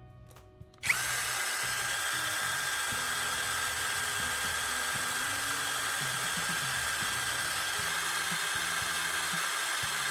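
Electric drill with a sanding disc running steadily while it grinds a carbon rod to a fine point. It starts abruptly about a second in, with a steady whine over the grinding noise.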